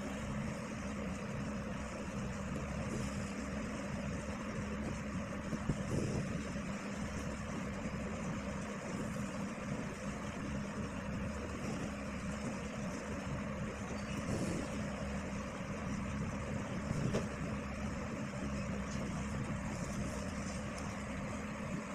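A steady mechanical hum with a whooshing noise underneath, like a motor running, with a couple of faint clicks.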